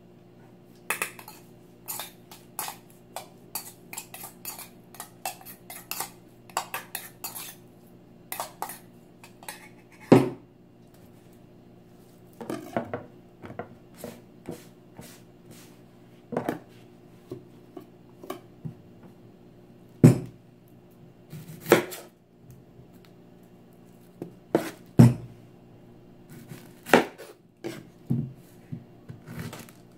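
A metal spoon clinking and scraping against a stainless steel bowl in quick taps for the first several seconds, then scattered louder knocks of utensils on a wooden cutting board, over a faint steady low hum.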